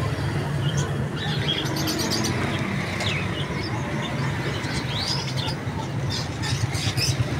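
Small birds chirping over a steady low hum: a few short rising chirps, then a quicker run of high chirps near the end.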